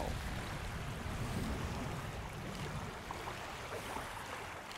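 Steady wind-and-water ambience: a low rumble under an even rushing hiss.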